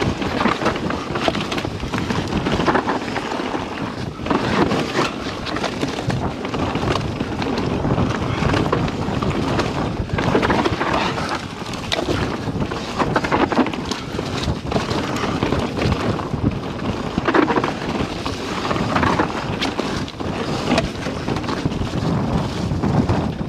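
SCOR 4060 ST mountain bike descending a dirt singletrack at speed, heard from a rider-mounted camera: wind rushing over the microphone, tyres rolling over dirt and dry leaves, and the bike rattling with frequent knocks over bumps.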